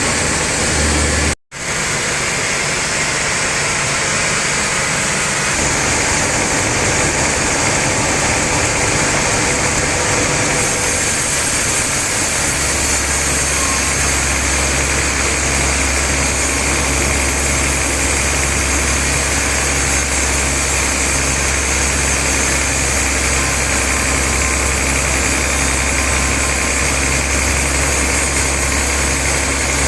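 Sawmill machinery running steadily with a loud mechanical drone. There is a brief break about a second and a half in, and about twelve seconds in the sound settles into a steady low hum with an even pulse.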